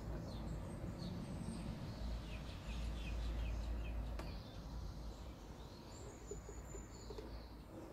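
Faint bird chirps over a low steady background rumble, with a quick run of short chirps about two seconds in.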